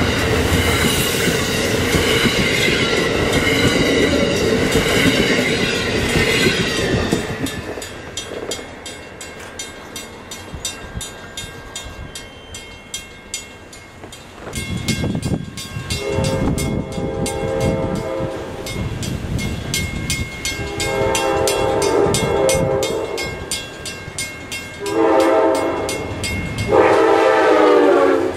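Amtrak passenger cars rush past over the rails for the first seven seconds. After that a grade-crossing bell rings steadily while an approaching Amtrak P42 locomotive sounds its horn in the long-long-short-long crossing signal. The final blast is the loudest and shifts in pitch as the locomotive reaches the crossing.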